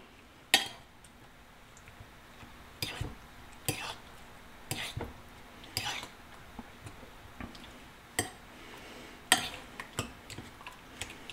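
Metal fork clinking and tapping against a ceramic bowl while pressing chunks of raw meat down into egg wash, about nine irregular clinks a second or so apart.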